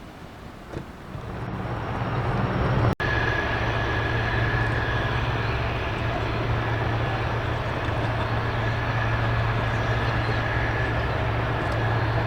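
Jet aircraft engine noise that builds over about two seconds, then runs steadily with a thin high whine over a low hum.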